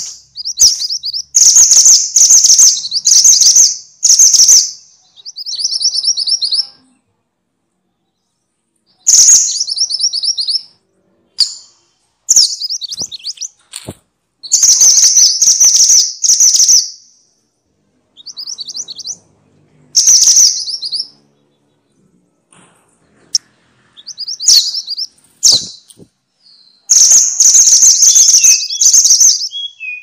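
Minivet (sepah) song: loud, high, rapid rolling trills in phrases of one to two seconds, separated by short pauses.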